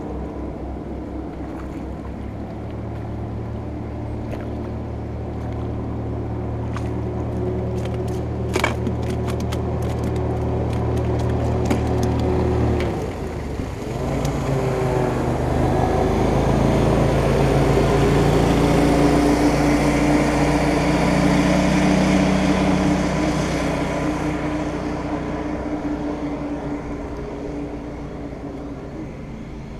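Outboard motor of a passing boat running at speed: it grows louder, its pitch drops as it goes by about halfway through, then it fades away. A few light clicks come about eight to twelve seconds in.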